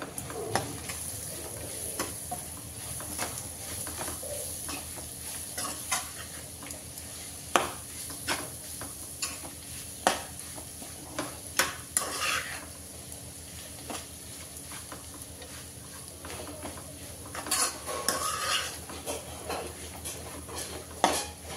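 A metal spoon stirs grated raw mango in a non-stick kadai. It scrapes and taps against the pan at irregular intervals, with longer scrapes about twelve seconds in and again near the end, over the steady sizzle of frying.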